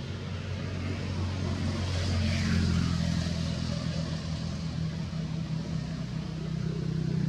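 A motor vehicle's engine running, a steady low hum that steps up in pitch about two seconds in.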